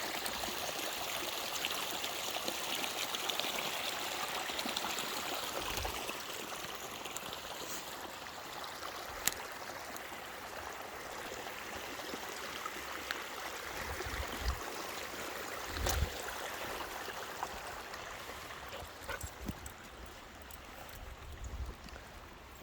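Water running in a stream, a steady rush that grows fainter in the second half, with a few dull low thumps and one sharp click.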